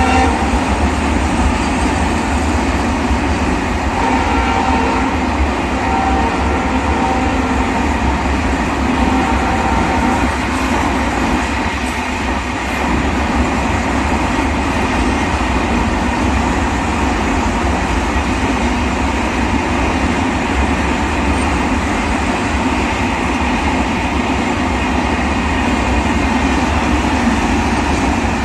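Diesel train passing at speed: a steady loud rumble and rattle of wheels on rail. The EMD locomotive's horn sounds twice in the first ten seconds or so.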